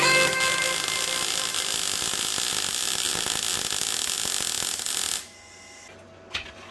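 MIG welder laying a weld along steel RHS sill tubing: a steady crackling hiss that cuts off suddenly about five seconds in.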